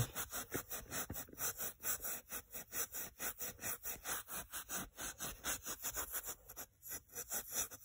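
#0000 fine steel wool scrubbed back and forth on a rusty metal mirror, a scratchy rubbing at about four strokes a second, polishing off surface rust.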